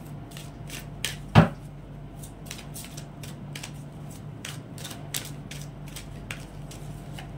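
Tarot cards being shuffled and handled by hand: irregular light clicks and snaps of the cards, with one louder knock about a second and a half in, over a faint steady low hum.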